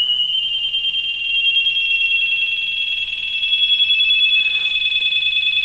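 Audio test tone of about 3 kHz from a function generator, played through the AWA Radiola 528MA's audio amplifier, being swept up and down in frequency 20 times a second by a second generator. It turns from a steady tone into an even, fast warble within the first half second.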